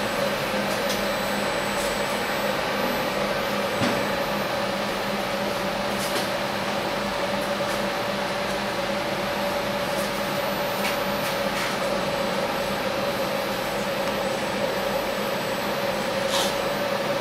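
Steady machine hum from a powered-up CNC milling machine, with a constant mid-pitched tone and a lower one under it, and a few faint light clicks scattered through.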